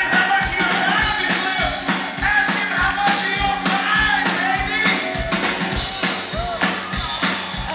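Live rock band playing loud, with a steady drum-kit beat and electric guitars.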